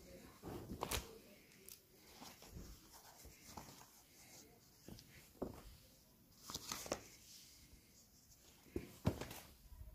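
Leather hides being handled and turned over: scattered rustles, rubs and soft knocks of the stiff skins, loudest about a second in and again just after nine seconds.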